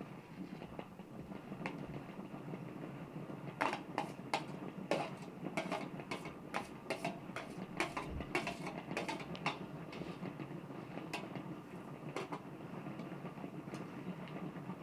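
Hand-cranked food chopper rattling steadily as its crank is turned on pumpkin. In the middle comes a run of sharp metal clinks and knocks as a metal tray is tapped and scraped against a metal bowl.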